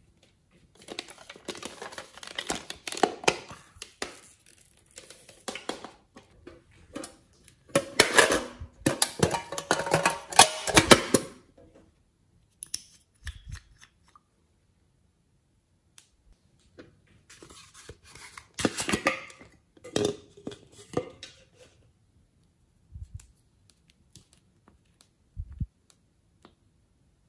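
Small plastic glitter containers being handled, shaken and tapped: three bursts of dense rattling and clicking as glitter is sprinkled out, the middle one loudest, then a few soft knocks as a bottle cap is twisted.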